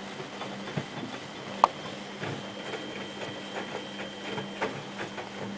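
Miele Hydromatic W734 washing machine running: a steady motor hum with a faint higher whine over it, and irregular knocks and clicks, one sharp click about one and a half seconds in. The owner finds the motor bearings a bit loud.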